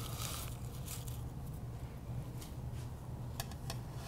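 Metal bench scraper scraping briefly under cut sugar-cookie dough on parchment paper, then a few faint light clicks and taps as the cookie is set onto a metal baking tray, over a low steady room hum.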